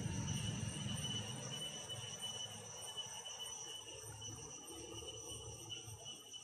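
Steady insect chirring, several high continuous tones held evenly throughout, with a low rumble at the start that fades within the first couple of seconds.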